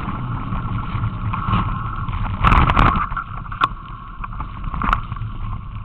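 Mountain bike riding along a trail: a steady rumble of tyres and wind on the microphone, with sharp knocks and rattles from bumps, the loudest cluster a little over two seconds in and single clicks later.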